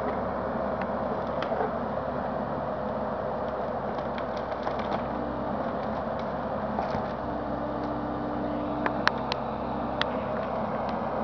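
Bobcat E55 compact excavator's diesel engine running steadily while working a tree shear. A few short sharp cracks are heard, the loudest about nine seconds in.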